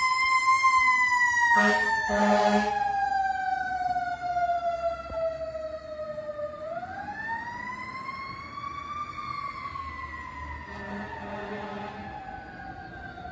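Fire engine's mechanical Q siren winding down slowly, then spun back up about seven seconds in and coasting down again, fading as the truck drives away. Two short air horn blasts come about two seconds in, and two fainter ones near the end.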